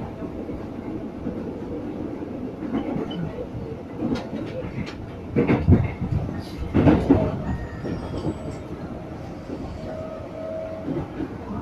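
Inside an ex-JR 205-series KRL Commuter Line electric train under way: a steady running rumble with wheel clatter over the rails, and a few louder clunks in the middle.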